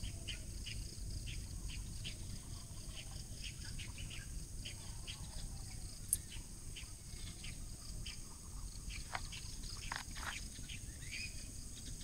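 Birds chirping in short, scattered notes, a few a second, over a steady high insect drone, with a low rumble underneath.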